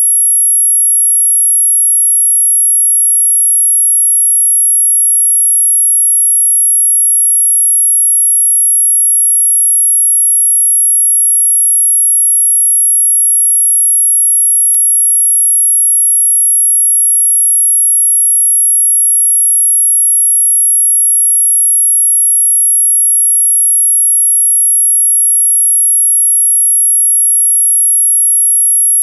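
A single very high-pitched, steady electronic tone, held without change, played as an anti-bark sound to make dogs stop barking. There is a faint click about halfway through.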